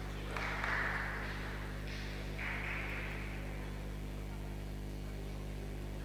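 Steady electrical mains hum on the recording. Two short hissy swells come through it, about half a second in and again about two and a half seconds in.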